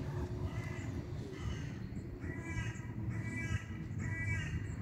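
A crow cawing over and over, a run of short calls about one or two a second, over a steady low rumble.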